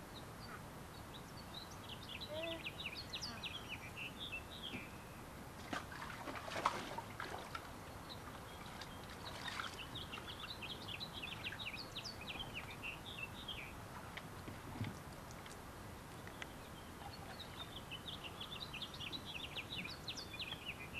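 A songbird singing in three bouts of quick, high chirps, each a few seconds long, with a brief noise about six seconds in.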